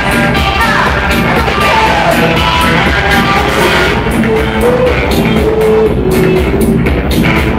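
A live rock band playing loud: electric guitar and electric bass under a woman singing lead.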